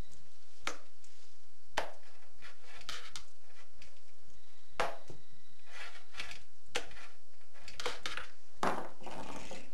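Kittens playing: an irregular series of short scratches and knocks of paws and claws on the floor and things around them, with a longer scratchy scuffle near the end.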